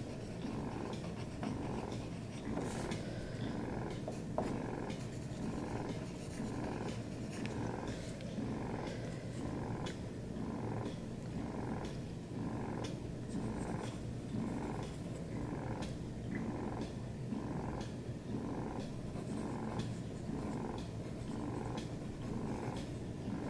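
A house cat purring close by, a steady rumble that swells and fades with each breath about one and a half times a second. Faint scratches of a pencil on paper run underneath.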